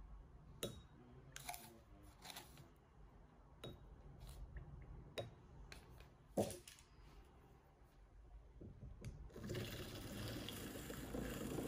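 Light knocks and clinks of a glass pitcher on a wooden board while liquid is poured into it. Then, from about nine seconds in, a handheld battery milk frother starts up and runs with a steady whir, whisking the liquid in the pitcher.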